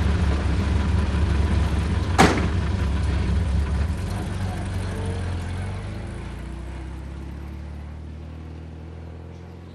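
Small rear-engined car, a SEAT 600, running at idle. A car door slams shut about two seconds in, then the engine pulls away and fades steadily as the car drives off.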